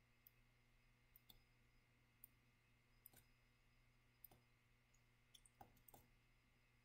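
Near silence with faint, irregular clicks of a stylus tapping a tablet screen while writing, over a faint steady hum.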